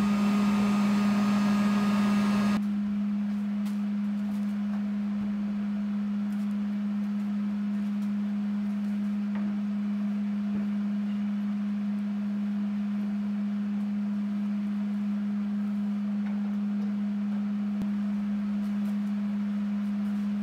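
A steady low hum held at one pitch. Over the first two and a half seconds a rushing noise lies on top of it and then cuts off suddenly.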